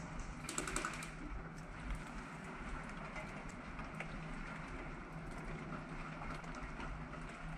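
Steady low background hiss and hum with scattered light clicks and taps, and a short quick rattle of clicks about half a second in.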